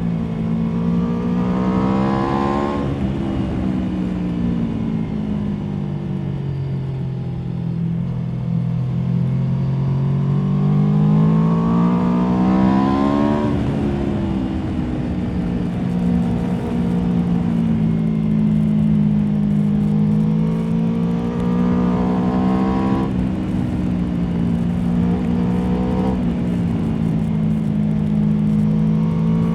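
Aprilia Tuono V4 motorcycle's V4 engine heard from on board, with wind rush. The engine note climbs three times under acceleration and drops sharply each time, at about 3 s, 13 s and 23 s, and it holds steadier between the climbs.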